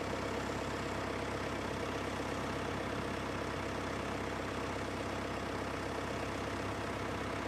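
White 2-60 tractor engine running steadily at an even, low speed, with a fine rapid firing pulse.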